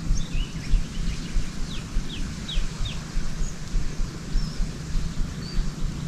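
Small birds chirping, with a run of four quick falling chirps about two seconds in and scattered single chirps, over a steady low rumble.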